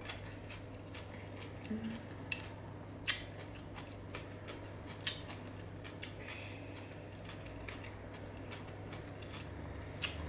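Quiet eating sounds at a glass salad plate: a handful of sharp, separate clicks and taps of a fork and food against the glass, with soft chewing and mouth sounds.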